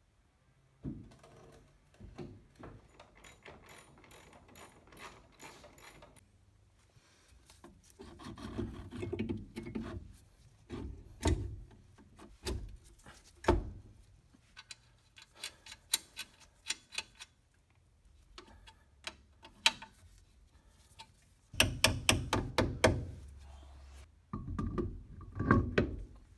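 A hand ratchet clicking in short, quick runs, between knocks and clinks of metal parts and tools being handled at a car's wheel hub. The loudest clicking and knocks come near the end.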